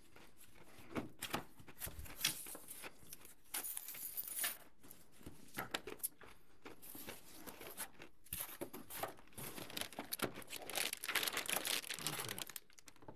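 A cardboard box being opened and unpacked by hand: flaps and paper rustling with irregular clicks and crinkling plastic wrapping, loudest and densest near the end.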